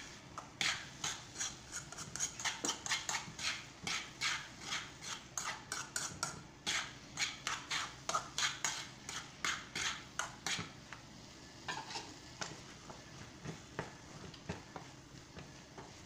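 A utensil stirring and scraping mashed potato around a nonstick frying pan, in quick strokes about three a second. About ten seconds in the strokes turn softer and sparser.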